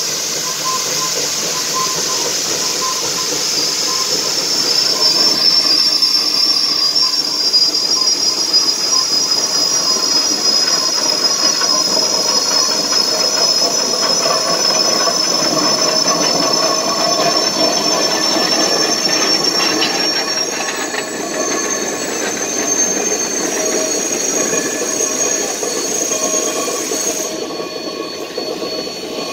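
Climax No. 9 geared steam locomotive rolling slowly past, its wheels squealing on the rails in a steady high squeal that slowly rises in pitch, over a hiss of steam. The sound dies down near the end as it moves away.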